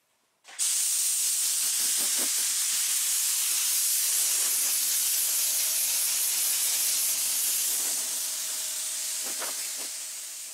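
Compressed-air blow gun hissing as it blows sanding dust off a scuffed fiberglass fender flare. The air starts abruptly about half a second in, holds steady, and eases off slightly near the end.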